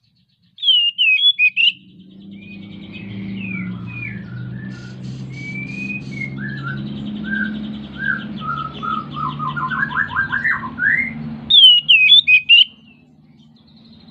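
Male Oriental magpie-robin (kacer) singing in full breeding condition: two loud bursts of quick rising-and-falling whistles, about half a second in and near the end, with a softer, varied phrase of whistled notes and rattling trills between them.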